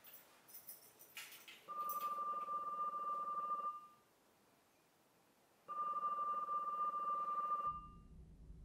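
Push-button desk telephone ringing: two rings of about two seconds each, two seconds apart.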